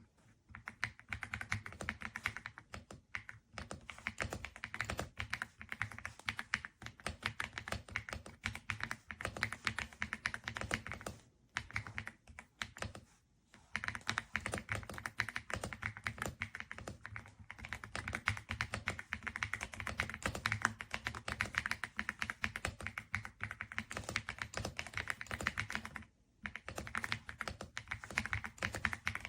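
Fast, continuous typing on an AULA F99 mechanical keyboard, a rapid run of key strokes. The typing stops briefly about eleven, thirteen and twenty-six seconds in.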